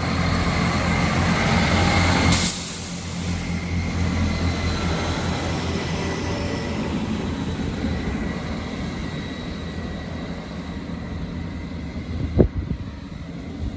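Class 158 diesel multiple unit pulling out, its underfloor diesel engines running with a steady low hum that fades as it moves away. A short loud burst of noise comes about two seconds in, and a single sharp knock near the end.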